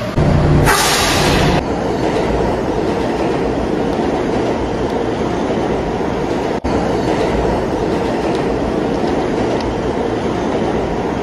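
Subway train running on the rails: a steady loud rumble with clickety-clack, and a short burst of air hiss about a second in. The sound drops out for a moment near the middle.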